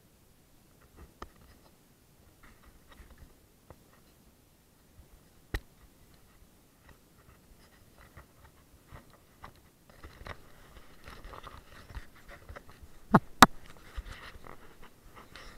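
Handling noise from the kayak-mounted camera being adjusted on its mount: scattered clicks and scraping, busier over the last few seconds. There is a sharp click about five and a half seconds in and two louder ones close together near the end.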